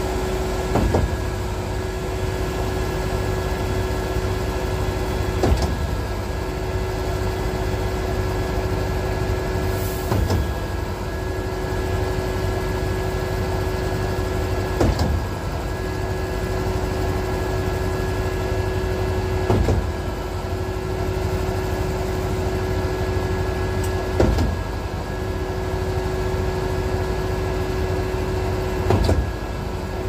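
Concrete line pump running steadily while concrete feeds into its hopper from a mixer truck's chute, with a sharp knock about every four to five seconds as it changes stroke.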